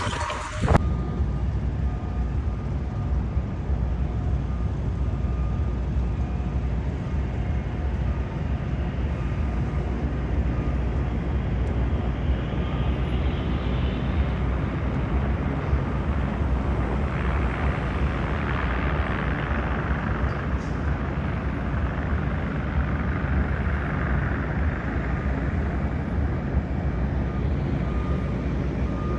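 City street traffic heard from a moving bicycle: a steady low rumble, with passing vehicles swelling up twice, about halfway through and again in the second half.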